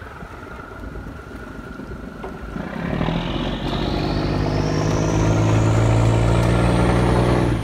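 Fishing boat's diesel engine throttled up about two and a half seconds in, going from a low idle to a loud, steady run, with a whine that climbs steadily in pitch as it speeds up.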